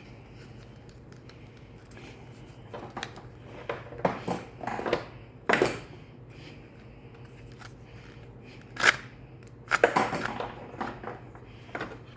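Clicks and scrapes of plastic and metal parts being handled and wound in a chainsaw recoil starter, in two bursts, over a steady low hum.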